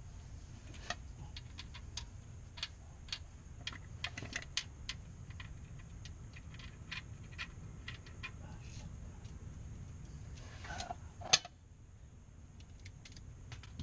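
Irregular light metallic clicks and clinks of hand tools and fittings being worked under a car, with one sharp, louder clack about eleven seconds in.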